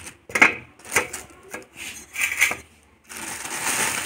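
Thin plastic carrier bag crinkling and rustling as vegetables are pulled out of it, with a few sharp knocks among the rustles. Near the end there is a longer stretch of steady rustling.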